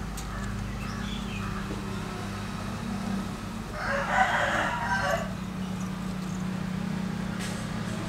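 A rooster crows once, for about a second and a half, midway through, over a steady low hum.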